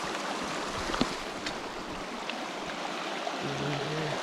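Small river flowing steadily, with a few faint ticks in the first half and a short low murmur from a person near the end.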